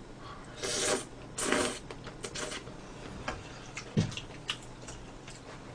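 Kalguksu noodles in spicy sauce being slurped into the mouth, two quick rushes of slurping about a second in. After that, a few light clicks and one soft thump of chewing and utensils.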